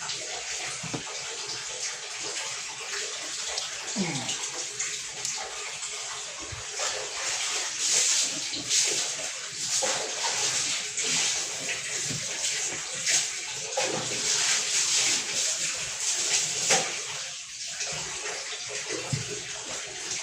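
Water running and splashing unevenly, surging louder in the middle and easing off toward the end.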